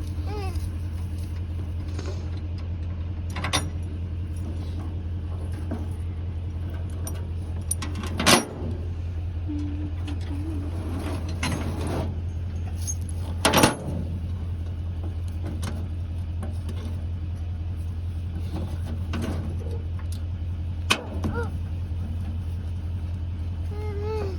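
Diesel engine idling steadily, with a few sharp metallic clanks or knocks over it, about four in all.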